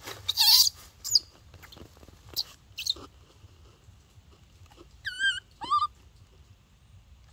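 Baby macaque giving two short, high, wavering calls about five seconds in. Before them come a brief noisy rustle just after the start and a few short scuffs as it moves through the leaves and dirt at the mouth of its burrow.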